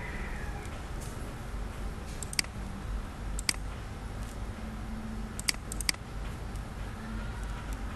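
Computer mouse button clicking: about four sharp clicks spread over several seconds, each a quick pair of ticks. Under them runs a low steady hum.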